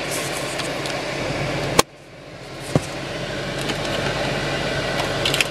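Steady hum of the car interior, from the running car and its climate fan. About two seconds in comes a sharp plastic click as the sun visor's vanity mirror cover and the visor are handled, with a softer click a second later and a few small clicks near the end.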